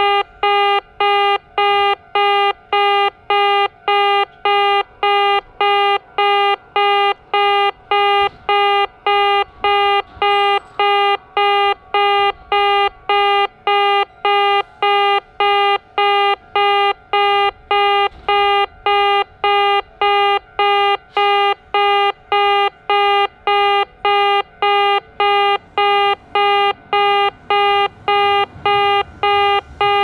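Kintetsu in-station level crossing warning sounding its distinctive buzzy 'be-be' tone: one pitch repeated in even pulses, about four every three seconds. It is the sign that the crossing is closed for an approaching or passing train.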